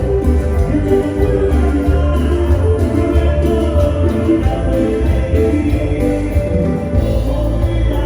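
Regional Mexican band music: an instrumental passage led by guitar over a strong bass line.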